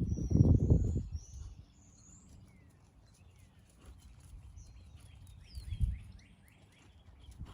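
Small birds chirping: high whistled notes at the start, then a quick run of falling chirps around the middle. A low rumble fills the first second and a dull thud comes near the end.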